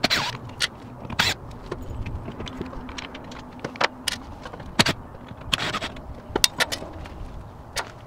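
Scattered clicks, knocks and light metallic rattles, irregularly spaced, of tools and door-latch hardware being handled while an RV entry-door latch is taken off.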